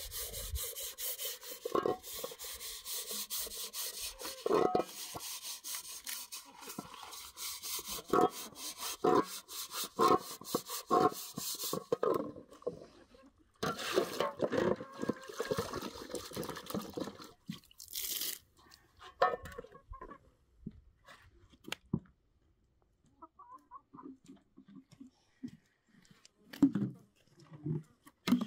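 Metal pots being scrubbed by hand in basins of water: quick rubbing scrub strokes with knocks of metal on metal. Past the middle it falls quieter, to scattered clinks.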